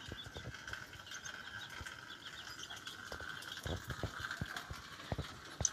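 Soft rustling and handling noises of tissue paper wrapped around a small body, with a few soft knocks, over a steady faint high-pitched background tone.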